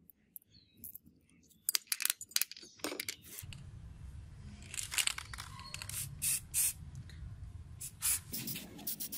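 Aerosol spray paint can hissing in a series of short bursts.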